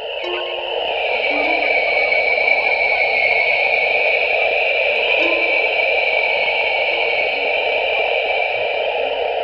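Sonification of space science data: a steady hiss like radio static, swelling about a second in and easing near the end, with a few faint short low tones under it.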